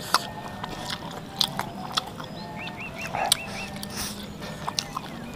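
Close-miked eating sounds: chewing of spicy tofu and rice, with wet mouth clicks and smacks scattered irregularly. A quick run of about five short high chirps comes a little past the middle.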